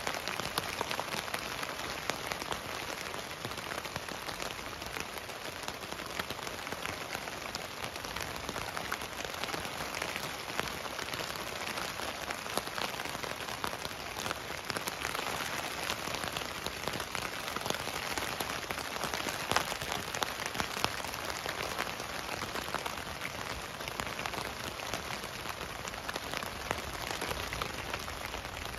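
Steady rain falling on a tent, heard from inside, with many single drops tapping the fabric.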